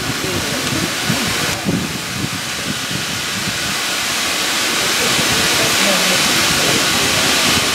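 Steam locomotive, a GWR 2-6-2T tank engine, hissing steadily as it blows off steam, the hiss growing louder in the second half. Bystanders' voices murmur underneath.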